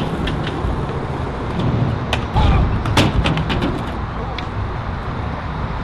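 Skateboard wheels rolling on concrete with a steady low rumble, broken by a series of sharp clacks of board and trucks striking the ground, the loudest about three seconds in.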